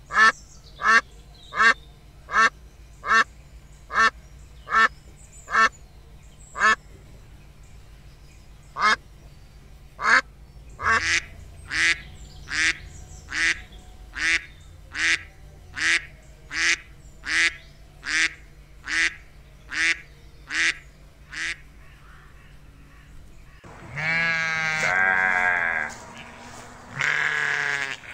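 White domestic duck quacking in a long series of short, evenly spaced quacks, about one to two a second, with a brief pause partway through. Near the end a sheep bleats twice, in long wavering bleats.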